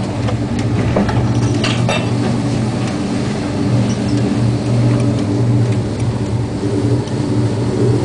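A ship's engines droning steadily, with wind and heavy seas breaking over the bow in a storm. A cluster of sharp knocks comes about a second and a half in.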